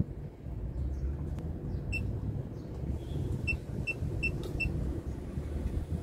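Short electronic keypad beeps from a chiller's wired controller as its buttons are pressed: one about two seconds in, then four quick ones about a second and a half later, over a steady low machinery rumble.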